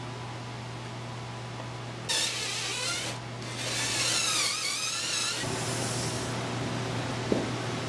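Drill boring pocket holes in a pine board through a pocket-hole jig, starting about two seconds in and running for about three seconds with a brief break, the motor's pitch wavering up and down under load.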